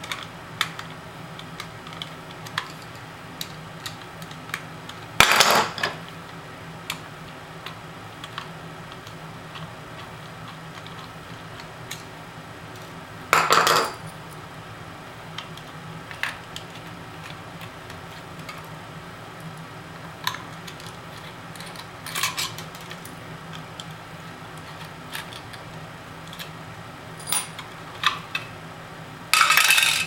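Metal clinking from a Phillips screwdriver backing the screws out of a laptop hard drive's steel caddy on a stone countertop: light ticks throughout, with about five louder clatters of metal on stone.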